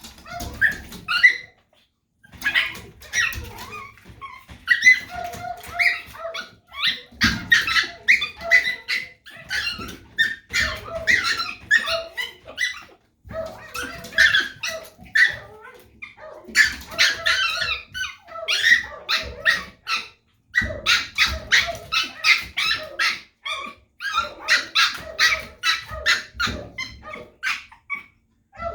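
A small dog barking over and over in rapid runs of short, sharp barks, in bouts broken by brief pauses.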